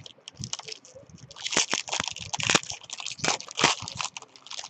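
Foil wrapper of a Topps baseball card jumbo pack crinkling and tearing as it is opened by hand. There are light rustles at first, then a dense run of crackling from about a second in.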